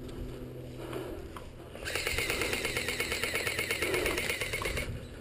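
Airsoft gun firing full-auto, a rapid, even stream of clattering shots starting about two seconds in and lasting about three seconds.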